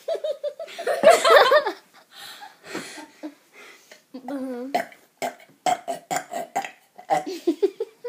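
A child burps loudly, one long burp in the first two seconds, during a burping contest. Laughter and giggles follow.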